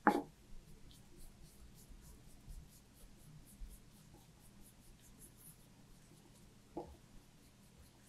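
Faint, repeated scratching of a gouache paintbrush stroking across paper, with a brief louder thump right at the start and a softer one near the end.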